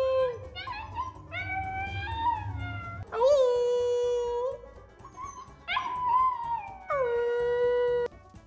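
Husky puppy howling: about five drawn-out calls, several rising and then held on a steady note for a second or more, with short yips between. The last howl cuts off abruptly near the end.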